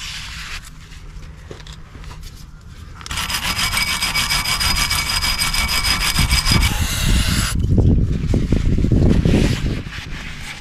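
Wire brush scrubbing rust and dirt off a car's rear wheel hub face in quick, rasping strokes, cleaning the mating surface so a new brake disc sits flush. Softer rag wiping comes first, and the brushing starts about three seconds in. Near the end it gives way to a couple of seconds of low rumbling knocks.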